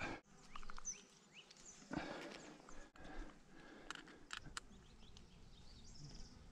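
Quiet field sound of a satellite tracking collar being handled on a sedated leopard: faint rustles, a few short soft bursts, and a couple of sharp clicks about four seconds in.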